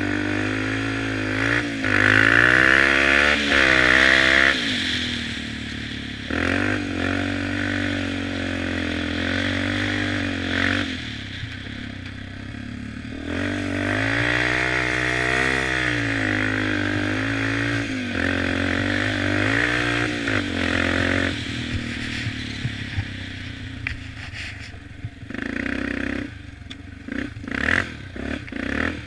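2006 Yamaha Raptor 350 quad's single-cylinder four-stroke engine running under way, revving up and easing off several times, highest a few seconds in and again around halfway. Rattles and knocks break up the sound near the end.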